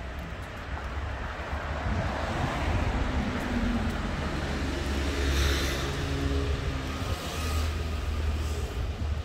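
A motor vehicle going by on the street. Its engine rumble builds over the first couple of seconds and stays loud through the middle, with a steady engine note and swells of tyre noise.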